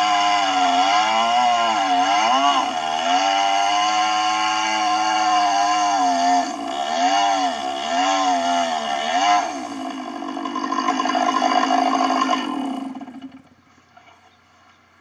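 Stihl 660 two-stroke chainsaw on a chainsaw mill running at full throttle while ripping a slab from a log, its pitch wavering up and down under the load of the cut. Near the end the engine winds down and stops.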